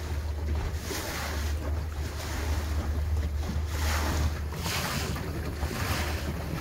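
Wind buffeting the microphone in gusts, over a steady low drone from the boat's motor and choppy river water washing along the hull.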